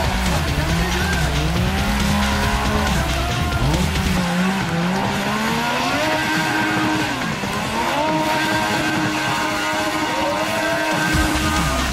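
Stunt motorcycle engine revved up and down over and over, its pitch rising and falling, while the rear tyre spins and squeals on the asphalt in a smoky burnout.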